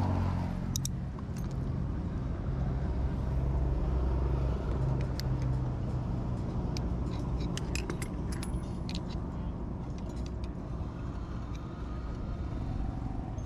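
Small metal parts and tools being handled, giving scattered light clicks and clinks, several in quick succession in the middle, over a steady low rumble.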